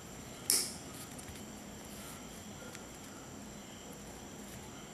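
One sharp, short snap about half a second in, as the PC power cord is cut open, with a faint click later over a steady low hiss.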